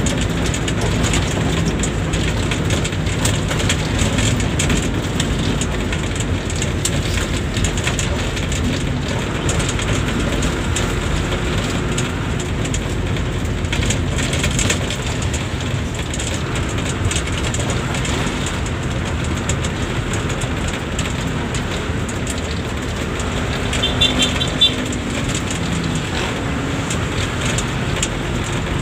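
Bus in motion: steady engine and road noise with small rattles and clicks, and a short high-pitched chirping about four-fifths of the way through.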